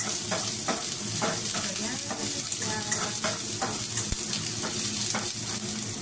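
Garlic and onions sizzling in a little hot oil in a nonstick pan, with a spatula scraping and stirring them in repeated strokes over a steady hiss.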